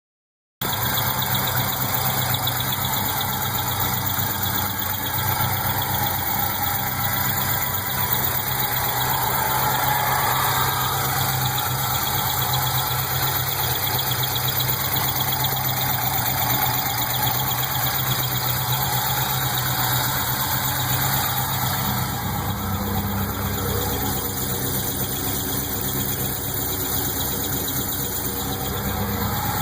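LS1 V8 engine idling with a repeating chirp from the top end, most prominent on top of the intake manifold.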